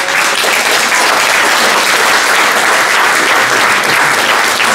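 Theatre audience applauding, with the cast on stage clapping along: steady, dense clapping.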